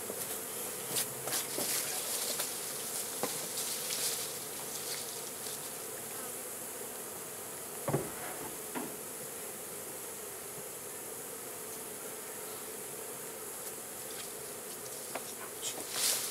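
Honey bees buzzing around an opened hive, a steady hum, with a few clicks in the first seconds and a single knock about eight seconds in.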